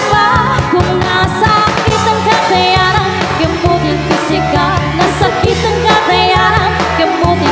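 Live band playing a pop song through a PA system: a steady drum-and-bass beat under a wavering lead melody.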